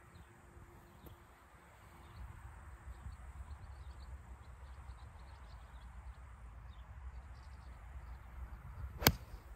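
Low wind rumble on the microphone, then, about nine seconds in, one sharp click of an 8-iron striking a golf ball off the tee.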